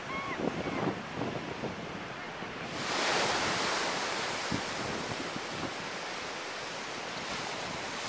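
Ocean surf breaking on the beach, with wind buffeting the microphone. About three seconds in, the wash of the surf becomes louder and fuller and stays steady.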